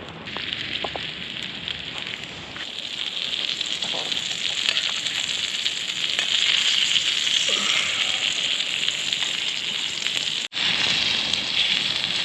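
Campfire crackling with small pops over a steady hiss that grows louder, broken by a brief dropout about ten and a half seconds in.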